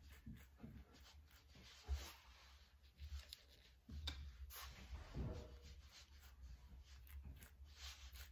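Faint scraping of a knife spreading margarine across slices of wholemeal bread, in short irregular strokes over a low steady hum.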